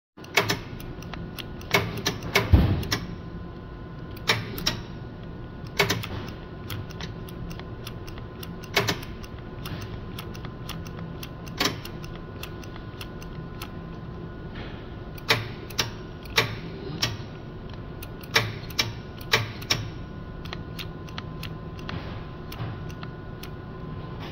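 Irregular sharp clicks from the switches and relay of a Lektro AP8600 electric aircraft tug's throttle control as the switch assembly is worked by hand, coming singly, in quick pairs and in short clusters over a steady faint hum. The relay is cutting in and out intermittently.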